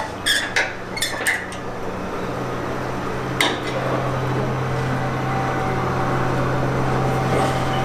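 Metal tools and clamps clinking as they are handled, then a steady low machine hum in the shop that starts about two seconds in and keeps going.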